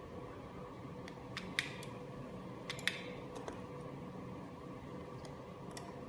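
Wireless light-switch kit clicking as its keys are pressed: sharp clicks in a cluster about a second and a half in, another near three seconds, and a few lighter clicks near the end, over a steady low hum.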